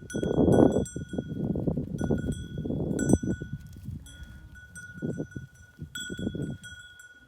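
Small metal bells on livestock, most likely a flock of goats or sheep, clinking and ringing on and off, with irregular bursts of lower rustling noise from the animals moving.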